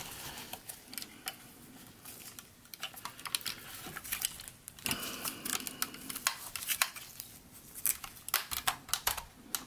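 Hard plastic parts of a large transforming robot figure clicking and scraping as they are handled and the side flaps are pushed into place: a quick run of small, irregular clicks.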